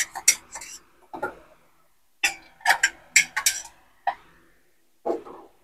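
Cookware clicking and clinking: irregular sharp metallic clicks in small groups, with a duller knock near the end.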